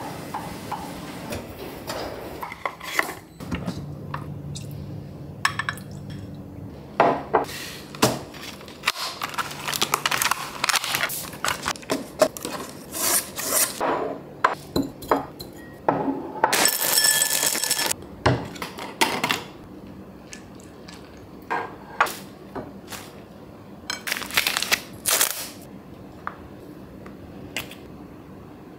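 Ceramic bowls and tableware knocking and clinking as they are set down and handled on a wooden table, in a string of short sharp sounds. A noisy stretch lasting over a second comes about halfway through.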